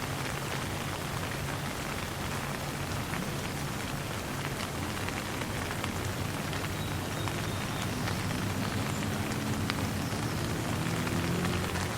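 Light rain falling steadily, with scattered sharp drop ticks over an even hiss. A low rumble underneath swells in the second half.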